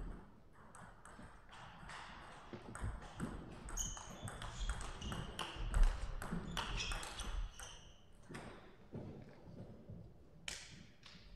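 Table tennis rally: the plastic ball clicking off the paddles and the table in quick back-and-forth succession, thinning to a few separate knocks near the end.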